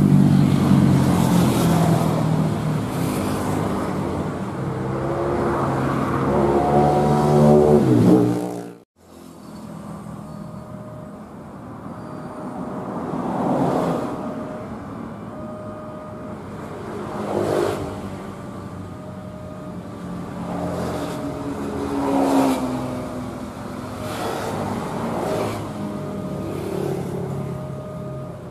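Motor-vehicle engines rising and falling in pitch for about nine seconds, then cut off abruptly. After that, road traffic at a railway level crossing, a vehicle swelling past every few seconds, while a short, evenly repeating warning tone sounds from the crossing.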